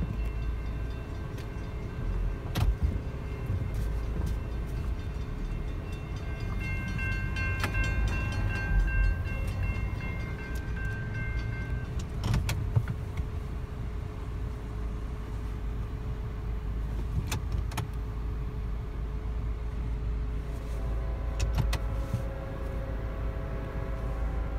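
Steady low rumble inside the cabin of a car waiting at a railroad crossing. A distant train horn sounds as a held chord of steady tones from about six seconds in to about twelve seconds, and again, louder, from about twenty seconds in as the train approaches.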